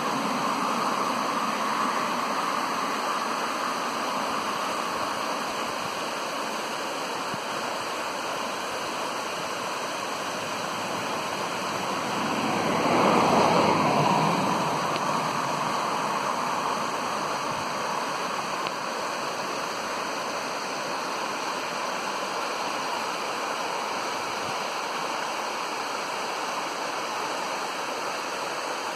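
A stream running high after heavy rain, its fast water rushing steadily over stones. About halfway through, a louder swell of noise rises and fades over a few seconds.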